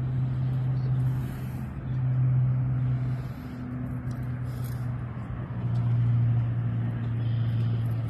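A motor running with a steady low hum that swells and fades several times.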